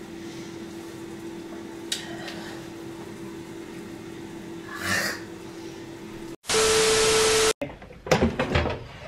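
Low kitchen room tone with a steady hum. About five seconds in comes a short gasp from a person grimacing after downing a shot of liquor. Then a loud burst of hiss carrying a steady tone is cut in sharply for about a second and cuts off suddenly.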